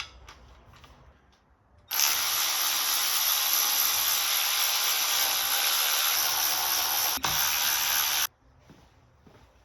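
A power tool runs in one steady, hissing whir for about six seconds, with a brief catch near the end, then cuts off suddenly. It is most likely working fasteners on the right side of a Subaru EJ257 engine during teardown.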